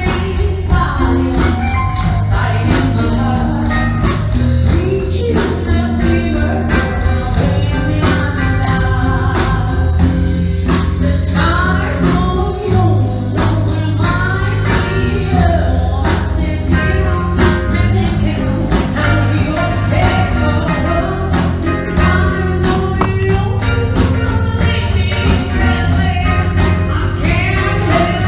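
Music: a song with sung vocals over a steady beat and bass.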